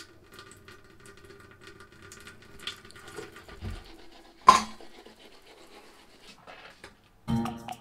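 Manual toothbrush scrubbing teeth: a run of short, scratchy brushing strokes. A single sharp knock stands out about halfway through, and music starts just before the end.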